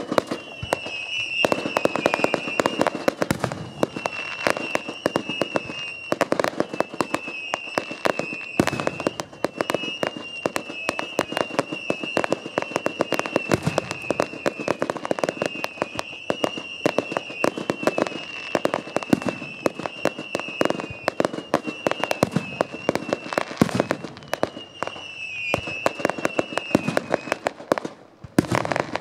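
Fireworks display: a dense, continuous run of bangs and crackles, with a high wavering whistle running through most of it. The barrage thins out near the end.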